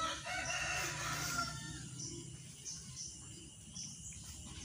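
A rooster crowing once, a call of nearly two seconds at the start, followed by a few faint short high chirps.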